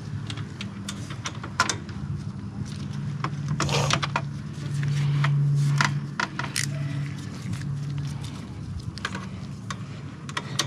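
Small metal clicks and clinks of a hand wrench working the upper mounting bolt of a motorcycle radiator guard bracket, with a brief scrape just before halfway. A steady low hum runs underneath and swells for a moment near the middle.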